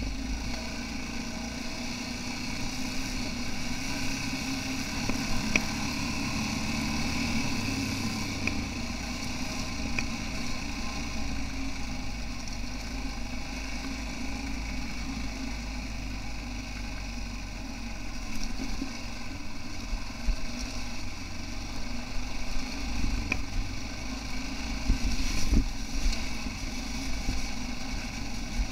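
Yamaha XT660R's single-cylinder four-stroke engine running at a steady, low speed while the bike is ridden along a track, with a few knocks near the end.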